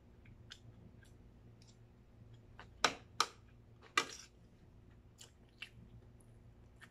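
Eating sounds: a metal spoon clicking and scraping against a plate, with chewing between. Scattered light clicks, and three sharper, louder ones about three to four seconds in.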